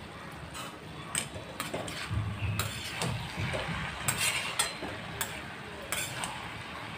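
Spatula scraping and clinking against a kadhai as a cabbage and chana dal curry is stirred, in irregular strokes that grow busier in the second half.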